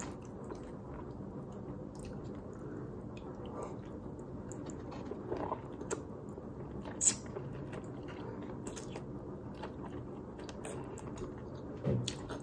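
A person chewing and eating mouthfuls of spaghetti carbonara, with scattered short clicks, the sharpest about seven seconds in, over a steady low room hum.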